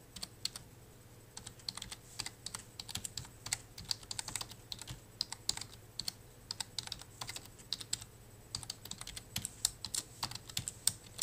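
Typing on a computer keyboard: a quick, irregular run of key clicks, with a short pause about a second in.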